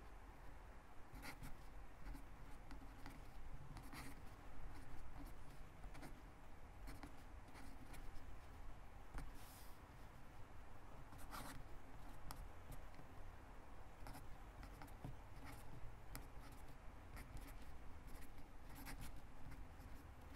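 Sharpie pen writing script on lined notebook paper: a quiet, irregular scratching of the tip across the page in short strokes, with a sharper stroke now and then.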